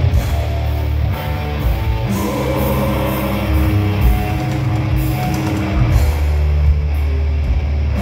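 Live rock band playing loud and heavy: electric guitars holding low sustained chords over a drum kit, with repeated cymbal crashes.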